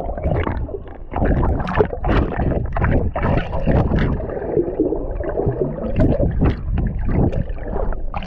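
Water splashing and sloshing close to the microphone in irregular surges.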